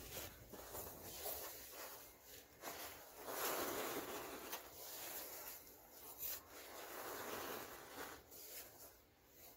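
Loose powder falling and being rubbed by hand in a plastic tub: soft rustling swells, the strongest a few seconds in and another near the end, with a few light clicks against the tub.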